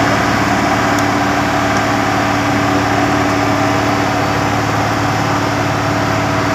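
The engine of a heavy road-construction machine running steadily, with an even hum.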